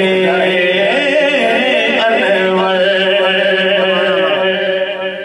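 A man singing a naat into a microphone, drawing out long, ornamented notes over a steady held low tone.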